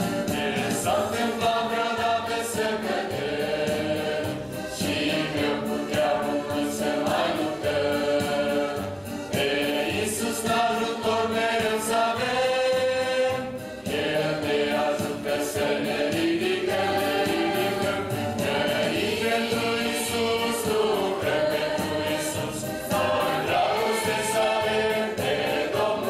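Mixed choir of young men and women singing a hymn in Romanian, with electronic keyboard accompaniment.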